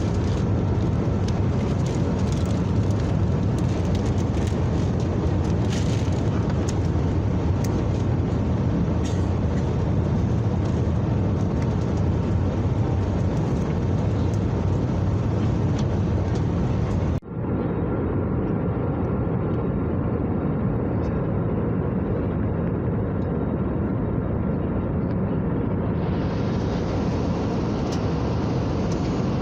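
Steady cabin noise of an Airbus A321neo: a low drone with a rushing-air hiss. The sound briefly drops out about halfway through.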